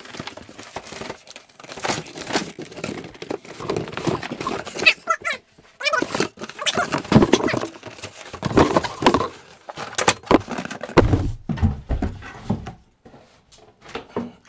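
Cardboard scraping and squeaking against cardboard as a boxed AV receiver is worked out of its shipping carton, with rustling handling and a few low thumps about three-quarters of the way through as the box is set down on a desk.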